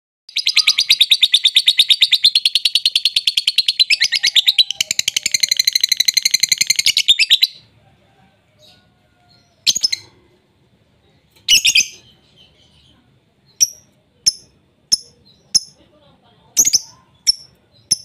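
Lovebird ngekek: a long, rapid chattering trill of about seven seconds, then a string of short, sharp single chirps a second or two apart.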